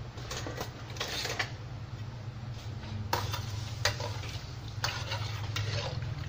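A metal spoon stirring in a wok of water, chillies and shallots, with several short scrapes and knocks against the pan over a steady low hum.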